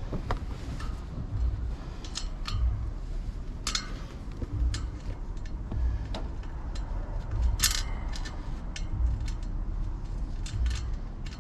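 Scattered metallic clicks and clinks of hand work on the rear axle, as the axle nut is put in place and threaded on by hand.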